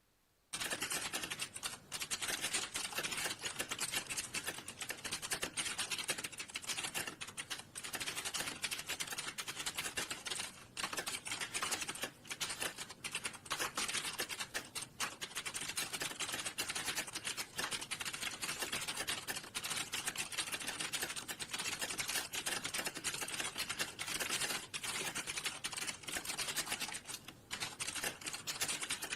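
Fast, continuous typing on a computer keyboard, key clicks running together with only a few brief pauses; it starts about half a second in.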